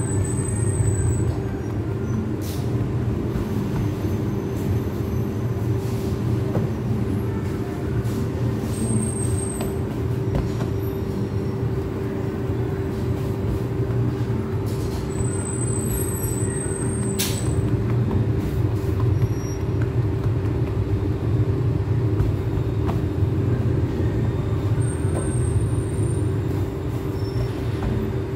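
Steady low machine drone with a constant hum on top, unchanging throughout, with a few faint clicks.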